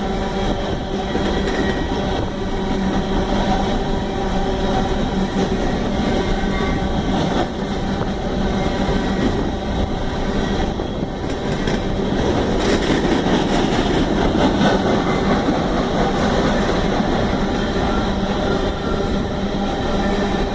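Freight train cars rolling past, their steel wheels running on the rails in a steady loud noise with a few sharp clicks about halfway through.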